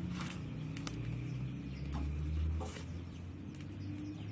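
Outdoor yard ambience: birds chirping now and then over a low steady rumble, with faint scattered crackles from the small wood fire burning under the iron flatbread griddle.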